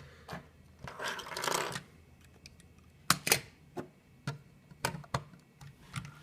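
Scattered light plastic clicks and taps from a LEGO model being handled and turned over, with a brief rustle about a second in.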